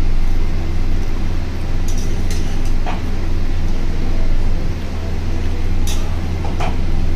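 A metal spatula scraping and clinking a few times against an iron kadai as wet, steaming greens are stirred, over a loud steady low hum.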